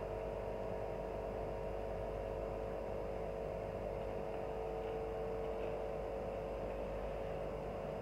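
Steady drone of a small engine on outdoor yard equipment, a lawnmower-type machine, running without a break. It holds several even tones at one level and does not change in pitch.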